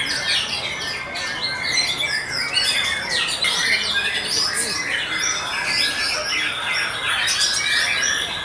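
White-rumped shama (murai batu) singing: a fast, unbroken stream of short rising and falling whistled and chirping notes.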